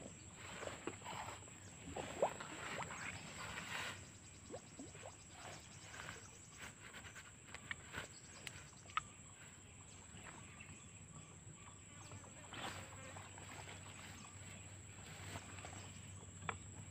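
Quiet lakeside ambience: a steady, faint high-pitched insect drone, with scattered soft rustles and small ticks from people shifting and handling fishing gear.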